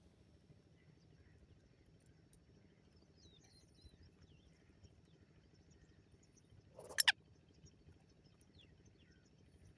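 Black francolin giving one short, loud, harsh call about seven seconds in, against faint chirping of small birds.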